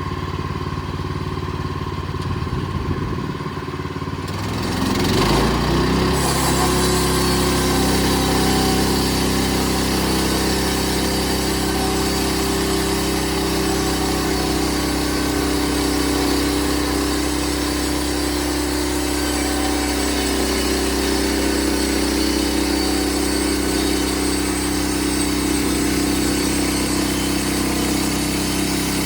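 Bushlander HM122 bandsaw sawmill's engine running, revving up about five seconds in and then holding steady at high speed, as when the blade is brought up to cutting speed for a pass.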